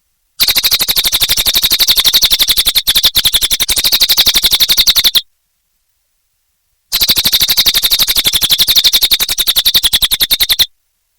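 Cililin songbird singing two long, loud trills of rapidly repeated high notes, each lasting about four to five seconds, with a pause of about a second and a half between them.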